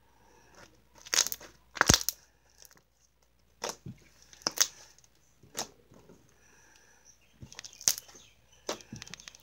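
Blue slime being squeezed, folded and stretched by hand, giving a string of irregular sharp pops and crackles as air pockets burst.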